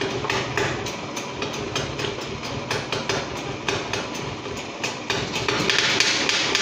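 Quick, fairly even metallic tapping on a motorcycle's engine with a hand tool, about four to five light knocks a second, over a steady low hum.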